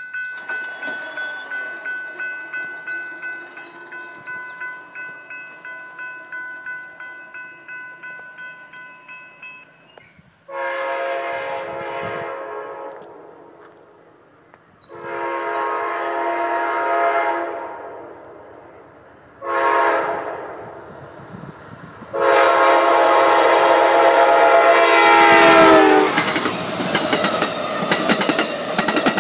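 Railroad crossing signal bell ringing in quick even strokes, then the horn of Amtrak's P42 locomotive #145 sounding the grade-crossing signal: two long blasts, a short one and a final long blast that drops in pitch as the locomotive passes. The passenger cars then go by with a loud rush of wheel and rail noise and a clickety-clack over the rail joints.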